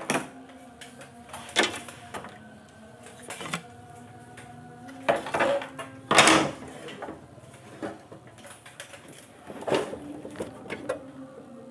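Scattered knocks and clatter of objects being handled and set down on a wooden workbench, the loudest about six seconds in, over a faint steady hum.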